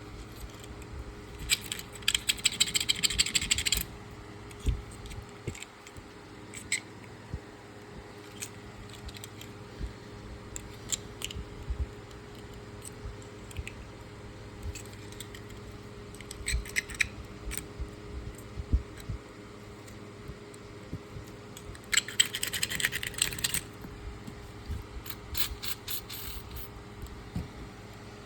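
Small hard clicks, scrapes and rattles from handling a pocket knife, with two bursts of rapid scratchy clicking about two seconds long, one near the start and one about three quarters of the way through.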